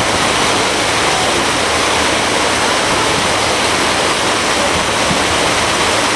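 Steady, loud rushing of water along the hull of a moving lake cruise boat.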